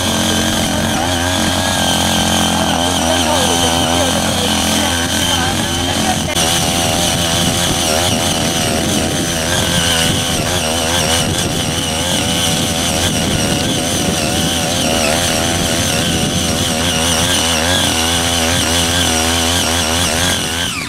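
The 5 HP engine of a small walk-behind power tiller running steadily at high throttle while its six rotary tilling blades churn through weeds, its note wavering a little.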